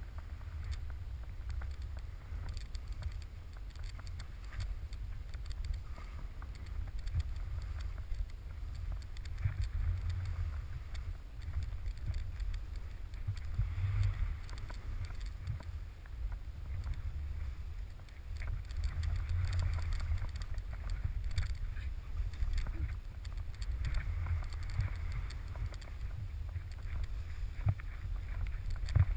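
Wind buffeting a pole-held GoPro Hero while skiing downhill, a low rumble that swells and fades, with skis hissing through fresh snow on the turns.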